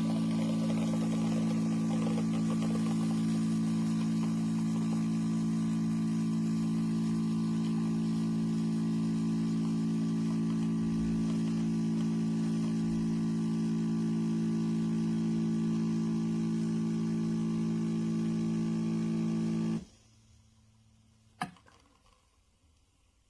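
Espresso machine's pump running with a steady electric hum, then cutting off suddenly near the end, followed by a single click.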